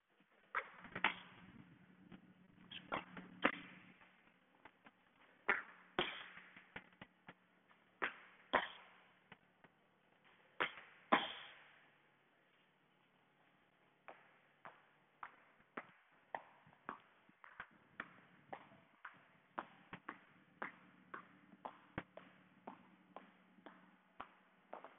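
Thuds of feet and hands landing on a floor during a bodyweight warm-up. The first half is irregular, with a few heavier knocks. After a short pause, light landings follow steadily at about two a second.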